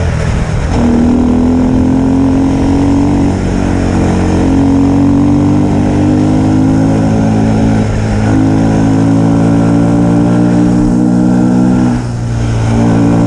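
Snowmobile engine running at a steady cruising speed, its pitch shifting slightly as the throttle changes, easing off briefly about twelve seconds in before picking up again.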